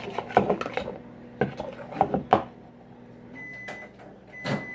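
Spoon clicking and scraping in a bowl as slime is mixed, for about two and a half seconds. Then a steady high electronic beep starts about three and a half seconds in, with a sharp knock near the end.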